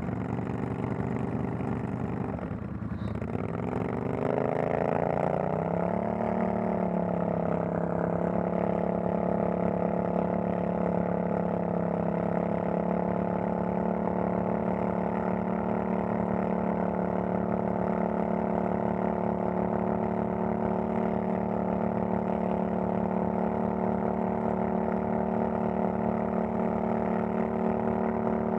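ATV engine revving up over a couple of seconds, then running at a steady speed.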